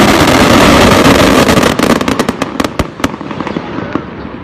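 Daytime coloured-smoke fireworks going off in a barrage: a loud dense rush of many launches at once, then a rapid string of sharp cracks around the middle that thins out and fades.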